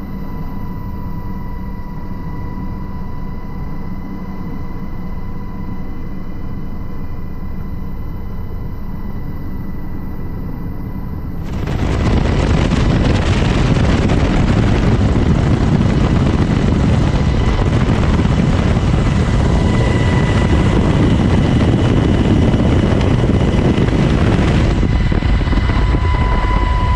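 UH-60 Black Hawk helicopter in flight. For the first eleven seconds there is a steady low rotor and engine drone with a faint steady whine, as heard inside the cabin. About twelve seconds in it jumps to a much louder, steady rush of wind and rotor noise, as heard at the open cabin door.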